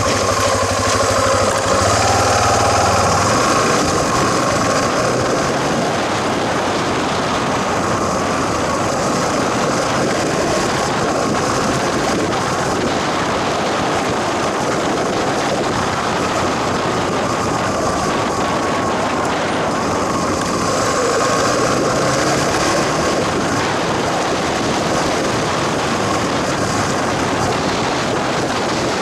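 A vehicle driving along a gravel road: steady engine and road noise, with tyres rolling over loose gravel.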